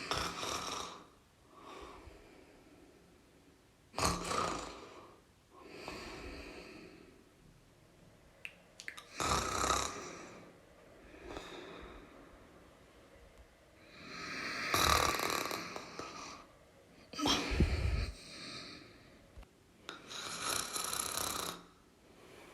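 A person snoring: loud rasping snores about every four to five seconds, with softer breaths between them. One snore late on is deeper and more rattling.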